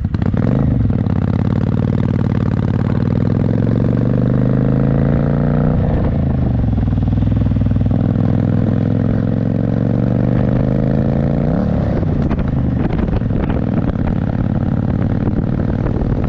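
Motorcycle engine accelerating away through the gears. The pitch climbs steadily, drops at a shift about six seconds in, climbs again, and drops at another shift about twelve seconds in, then holds at a steady cruise.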